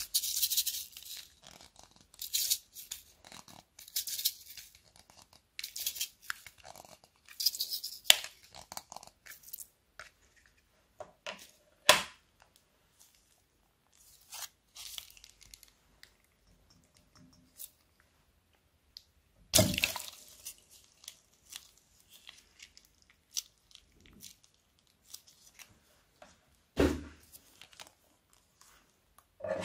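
A plastic wheel container of small gold beads shaken, the beads rattling in quick bursts. Then plastic bags of coloured slime are handled, crinkling and rustling, with three louder bumps.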